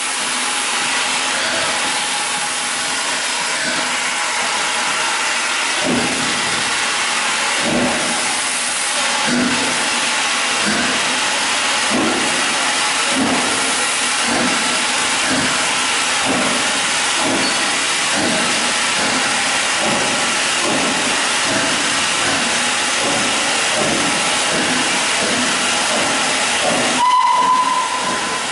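Steam locomotive No. 461 getting under way: a loud constant hiss of escaping steam, with exhaust chuffs starting about six seconds in and coming gradually quicker as it picks up speed. Near the end a short whistle note sounds.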